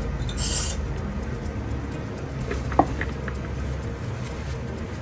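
Small metal clicks and ticks of jeweller's tools working gold wire while it is bent, one sharp click with a brief ring near the middle, over a steady low hum. A short high hiss sounds about half a second in.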